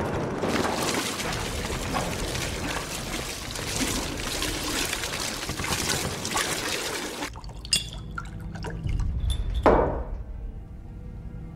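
Petrol pouring and splashing from jerrycans onto blanket-wrapped bodies. About seven seconds in, the sound cuts to a quieter low rumble with a sharp click and a brief louder swell.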